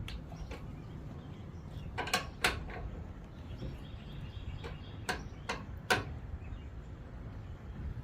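Irregular sharp metallic clicks and knocks of hand tools and fastener hardware as a tailgate-assist bracket bolt is fitted and tightened, over a steady low rumble.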